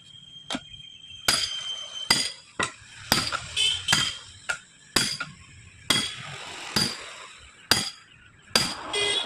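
Hammer blows ringing on steel, about a dozen strikes at an uneven pace, as a tyre is worked off its wheel rim.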